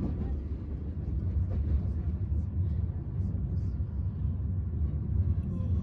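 Passenger train running along the track, a steady low rumble heard from inside the carriage.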